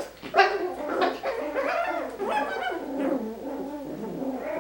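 Five-week-old Coton de Tulear puppies vocalizing with high, wavering whines and yips.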